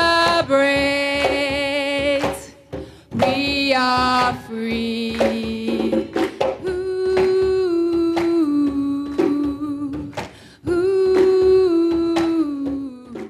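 A woman singing into a microphone in long held notes that step up and down, with short breaks, while a group claps along.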